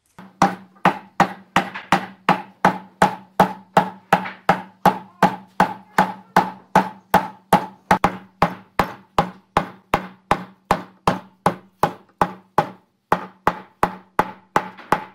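Steel hammer striking a rough bark-edged wooden slab in a steady run of about three blows a second, each a sharp knock, as it knocks the bark loose along the slab's edge.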